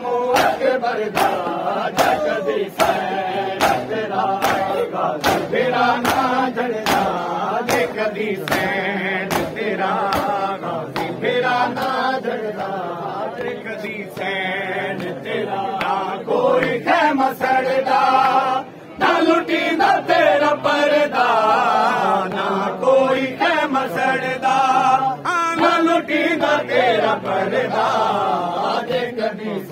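A crowd of men chanting a Punjabi noha (a mourning lament) in unison, with rhythmic slaps of open hands on bare chests (matam) about twice a second. The slaps are clearest in the first several seconds.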